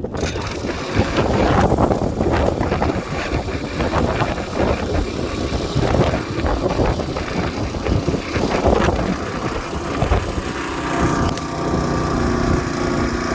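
Small engine of a power barrow (motorised wheelbarrow) running under load as it climbs, its note settling into a steadier hum near the end.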